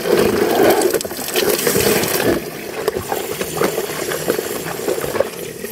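A stream of water falling from an outdoor pipe spout and splashing into a container below, with a few small knocks.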